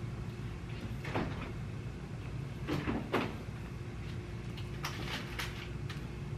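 Refrigerator door opened and groceries put onto its shelves: a few short knocks and clatters, one about a second in, two close together near three seconds and a cluster about five seconds in, over a steady low hum.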